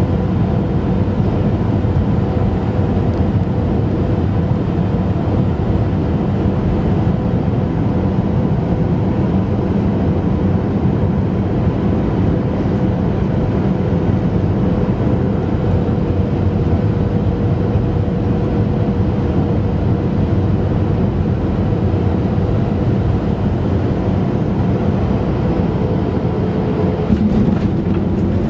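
Cabin noise of a Boeing 737-500 on final approach: its CFM56 engines and the airflow make a steady rush with a faint steady hum over it. A short bump is heard near the end, as the aircraft comes down over the runway.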